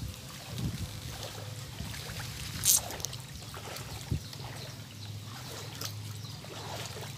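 Floodwater lapping and trickling around a makeshift raft being poled along, with a brief sharp splash near the middle and a dull knock a little later.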